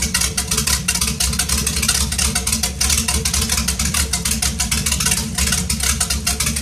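A 1994 Scarab's MerCruiser 350 Mag V8 idling steadily while it warms up, run out of the water on the trailer with a garden hose supplying cooling water to the sterndrive.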